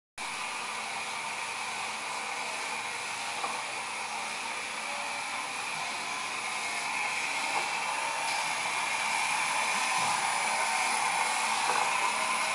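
2004 PALS wrap-around labelling machine running: a steady mechanical whir from its conveyor and label-feed drives, with a faint high whine, growing a little louder in the second half.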